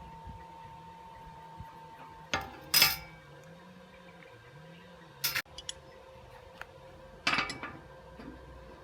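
Metal parts and tools clinking and knocking together as they are handled in a workshop: four sharp metallic hits spread over several seconds, the loudest about three seconds in.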